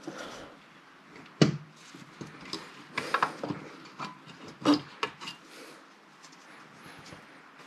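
Irregular handling knocks and scrapes as a power-supply circuit board is test-fitted into its sheet-metal case. The sharpest knock comes about one and a half seconds in, with a cluster of clicks around three seconds and another knock near five.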